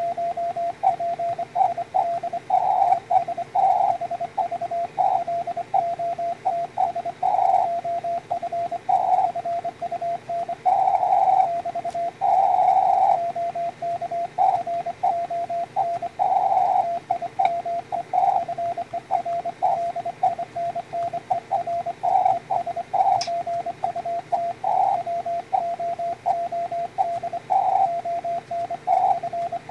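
Morse code (CW) on the 20-metre band from a customized SW20 QRP transceiver: a single steady mid-pitched tone keyed into dots and dashes at an even sending pace, over a faint hiss of band noise.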